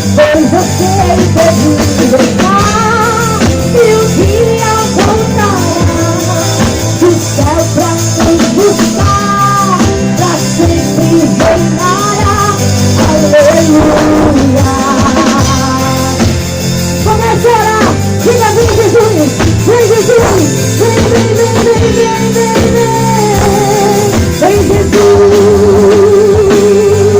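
Live gospel praise music: a voice singing over an amplified band with a steady bass and drum beat. A long wavering note is held near the end.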